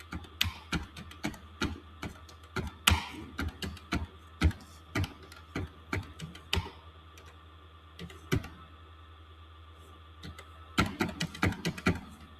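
Typing on a computer keyboard: irregular keystrokes, a few a second, then a pause of about three seconds with a single keystroke, then a quick run of keystrokes near the end.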